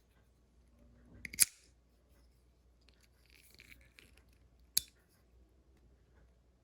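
Boker Plus automatic knife firing, its spring-driven blade snapping open with a sharp click about a second and a half in. A second, shorter click comes near five seconds in, with faint handling rustle between the two.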